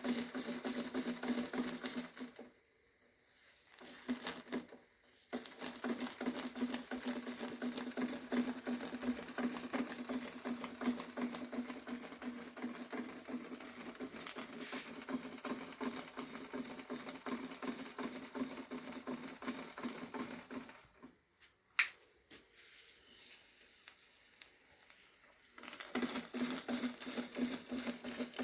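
Märklin 4112/11 toy steam engine running fast under steam from its spirit burner: a steady hum with rapid fine ticking. The sound drops away twice early on and for about five seconds later, with a single sharp click in that longer gap.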